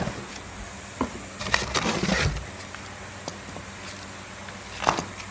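Handling sounds of the cardboard box holding the new replacement starter: a few light knocks and a brief rustle of cardboard about one and a half seconds in, then another single knock near the end.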